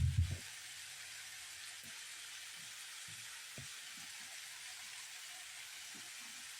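Vegetables sizzling steadily in a frying pan, with a short dull thump at the very start.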